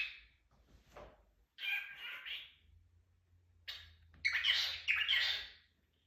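Cockatiel making a string of short kissing and chirping noises, four or five separate bursts with pauses between, the longest and loudest near the end.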